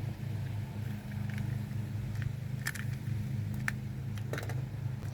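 A steady low mechanical hum, with a few faint clicks over it in the second half.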